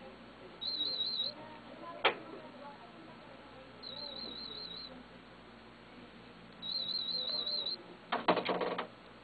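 Audiometer warble tones, high-pitched at about 4 kHz and wavering quickly in pitch, played three times for about a second each as test signals in an aided hearing test. A single sharp click comes about two seconds in, and a short burst of loud clicks comes near the end.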